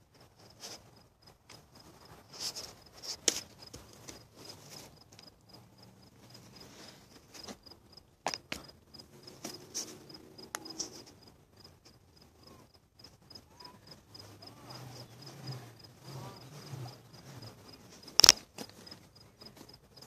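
Insect chirping at one high pitch, about three short chirps a second, with scattered knocks and rubbing close to the microphone; the loudest knock comes near the end.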